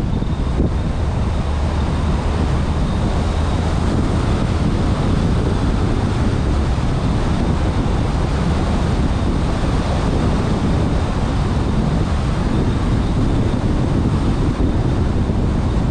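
Car driving steadily at road speed: an even rumble of road and wind noise, heaviest in the low end, with no changes.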